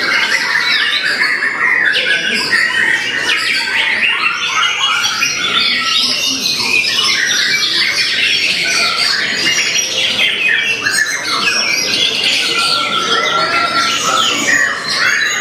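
White-rumped shama singing a dense, continuous run of fast, varied phrases, with quick whistled sweeps and rapid trills following one another without a break.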